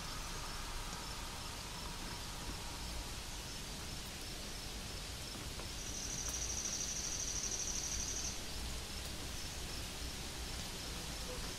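An insect's steady, high-pitched buzz sounds over a steady outdoor hiss, starting about six seconds in and stopping about two and a half seconds later.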